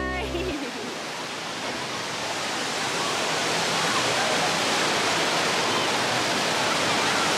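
Steady rush of water from a wave pool and man-made waterfalls, with faint voices of swimmers underneath. Background music cuts off in the first half second.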